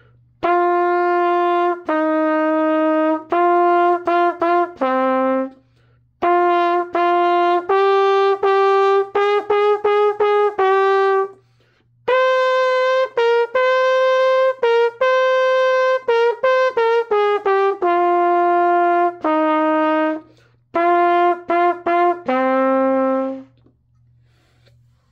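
Solo trumpet playing a simple melody in four phrases, mixing held notes with quicker runs, with short breaks between phrases. The last phrase ends on a lower held note shortly before the end.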